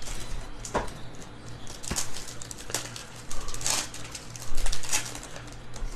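Trading card packs being opened and the cards handled: a few short, irregular rustles and crinkles of the wrapper and cards, the loudest about four to five seconds in.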